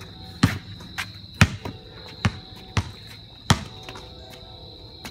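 A basketball dribbled on a concrete court: about six sharp, unevenly spaced bounces in the first three and a half seconds, then the dribbling stops.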